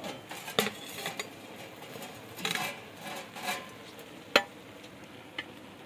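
Metal spoon stirring meat and tomatoes in an aluminium cooking pot, clinking and scraping against the pot a few times, with one sharper knock about four and a half seconds in.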